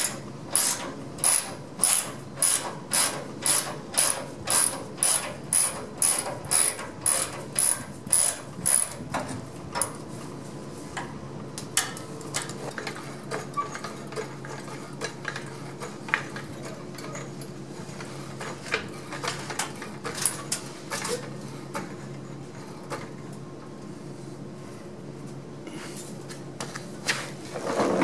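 Hand ratchet clicking in steady strokes, about two a second, backing out the bolts of a skid plate. After about nine seconds the strokes stop and only scattered clicks and small knocks follow, with a louder clatter right at the end.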